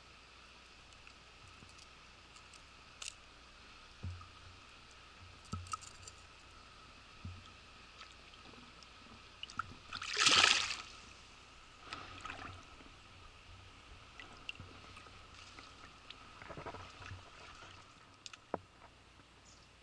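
A chub splashing once in shallow water, a loud burst lasting about a second halfway through, with a few smaller splashes and scattered light clicks and knocks around it.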